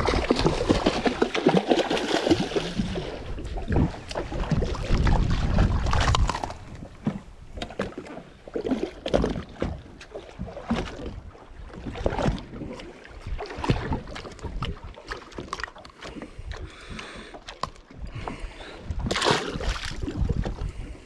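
Water sloshing against a small fishing boat's hull, with wind on the microphone. The wind and water are loudest in the first few seconds, and scattered knocks and clatter on board follow.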